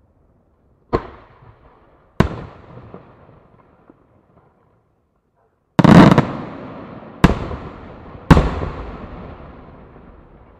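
Aerial firework shells bursting overhead: five sharp bangs, each trailing off in a rolling echo. The heaviest burst comes about six seconds in, followed quickly by two more.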